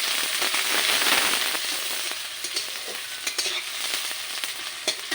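Chopped onions sizzling as they fry in hot mustard oil in a kadai. The sizzle is loudest in the first couple of seconds and then eases, with a few sharp knocks near the middle and end.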